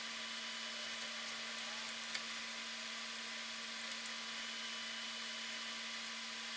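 Steady electronic hiss with a faint constant hum and a small click about two seconds in: the recording's own noise, with no real sound from the scene.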